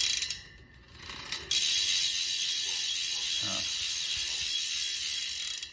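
Cinema BMX cassette hub freewheeling as the rear wheel spins: its four pawls, under a single round spring, clicking over the ratchet of the 9-tooth driver. A short burst of clicks comes right at the start, then from about a second and a half in the clicks run so fast they merge into a steady high buzz.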